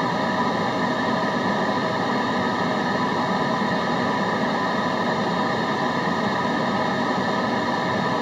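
Steady white noise, a continuous even hiss with no breaks or changes in level.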